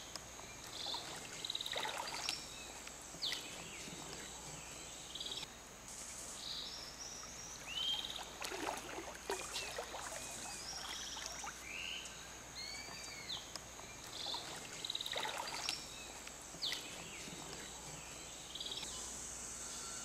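Gentle water splashing and sloshing from swimming strokes in a pool, coming in short bursts every few seconds. Behind it run repeated short high chirps and a steady faint high hiss.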